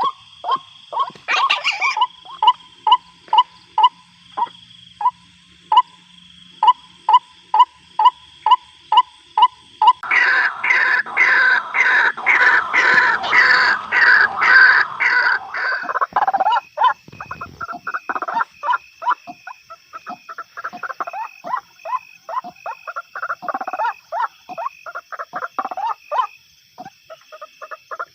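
White-breasted waterhens (ruwak-ruwak) calling, a lure call of the kind used to trap them. Short calls repeat about twice a second, swell into a dense overlapping chorus of several birds around the middle, then run on faster and more ragged.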